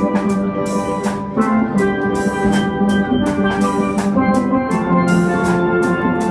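Steel band playing a tune on many steel pans at once, with quick rolled notes in the high pans over a bass line. Percussion strikes a steady beat about two to three times a second.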